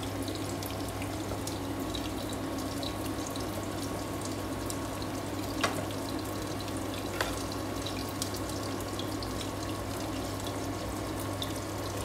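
Pork binagoongan sauce simmering in a frying pan, a steady bubbling sizzle full of small crackles over a low steady hum. Two sharp clicks, typical of the wooden spatula against the pan, come around the middle.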